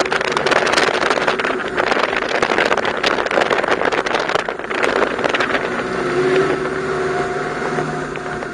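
Ferrari F430's V8 engine running hard, heard from inside the open-top cabin with wind buffeting the microphone. From about six seconds in the sound turns steadier and a little quieter.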